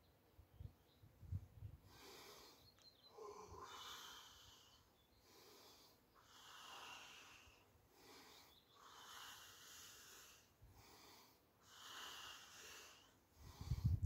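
A person breathing slowly and audibly in and out, faint, about five long breaths. A few soft low thumps come in the first couple of seconds.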